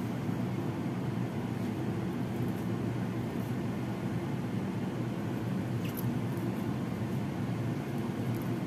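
A steady low rumble of background noise at an even level, with one faint click about six seconds in.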